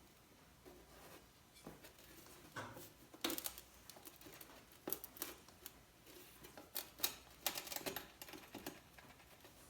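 Irregular light clicks and taps of metal on metal, tools and fasteners against the outer primary chain case of a 1961 Norton Manxman 650 as it is worked loose. Most of the clicks come in the middle and later part.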